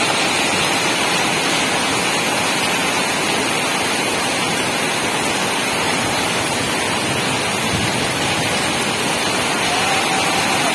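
Heavy rain pouring down with muddy floodwater rushing across the ground, a steady, loud rush of water.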